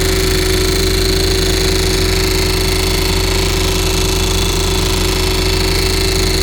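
Well-drilling rig boring through bedrock with its percussive hammer drill: loud, steady rapid hammering over a constant machine hum.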